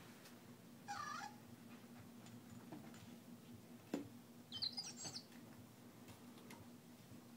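A Zhu Zhu Pet toy chirping: a short warbling squeak about a second in, then a quick burst of high, wavering twitters near five seconds. A single thump comes just before the twitters, over a faint steady hum.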